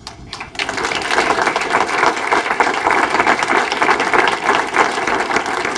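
Audience applause: many people clapping, breaking out about half a second in and holding steady.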